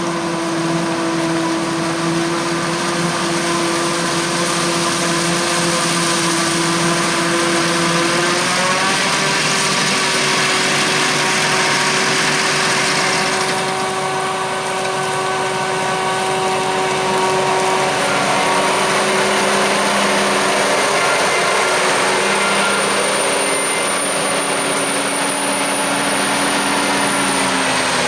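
Harvest machinery running steadily: diesel engine tones with a thin high whine over them. The engine pitch steps up a little about eight seconds in, and the sound thins out somewhat in the second half.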